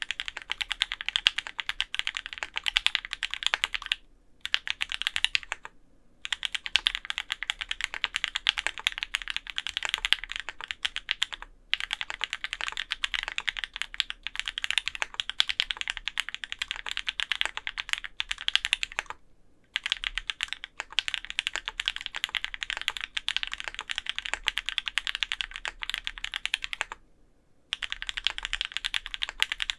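Fast typing on an Orion v2.5 mechanical keyboard, top-mounted with an aluminium plate, fitted with lubed Opblack switches and GMK keycaps: a rapid, even stream of key strokes that breaks off briefly about five times.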